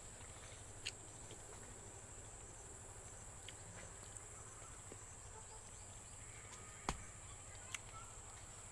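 Faint, steady, high-pitched insect drone, with a few sharp clicks, the loudest about seven seconds in.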